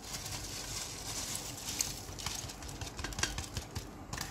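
Soaked, drained rice grains sliding out of a plastic colander into a pot of liquid as a wooden spatula scrapes them out: a steady rustling hiss for the first couple of seconds, then scattered light taps and clicks.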